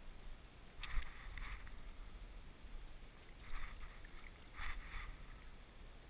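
Four short water splashes in two pairs, about a second in and again around three and a half to five seconds, as a hooked redside rainbow trout is brought to a landing net at the surface.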